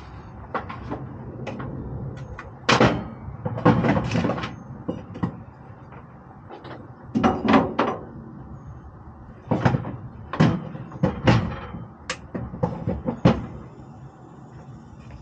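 Irregular knocks and clunks of gear being handled and set down in a pickup bed under an aluminium truck cap, including a bench soldering station being put down about eight seconds in.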